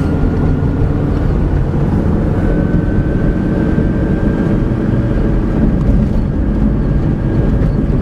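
Car running at low speed, heard from inside the cabin: steady engine and tyre rumble with a faint high whine that steps up slightly a couple of seconds in.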